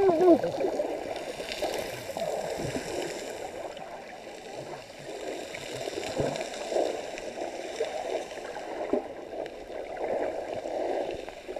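Sea water heard by an underwater camera: a muffled, steady wash with scattered small knocks and pops. A brief steady tone sounds at the very start.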